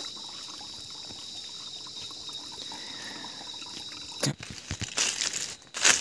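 Steady trickle of water for about four seconds, then crunching and rustling of dry leaf litter underfoot as someone walks, in irregular bursts.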